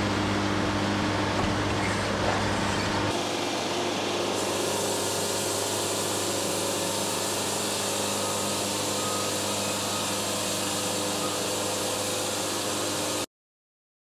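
Wood-Mizer LT70 bandsaw sawmill running on its diesel engine, the band blade cutting through a walnut log: a steady mechanical noise with a low hum. It cuts off to silence about a second before the end.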